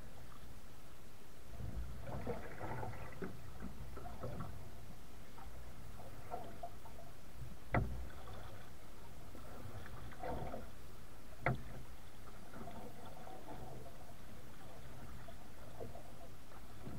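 Kayak paddle strokes: a wooden Greenland paddle dipping and splashing in calm water, with drips between strokes. Two sharp knocks, about four seconds apart, near the middle.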